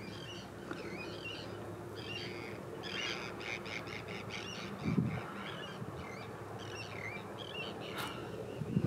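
Gulls calling again and again, with a quick run of calls about three seconds in, over a steady low hum. A wind buffet on the microphone about five seconds in.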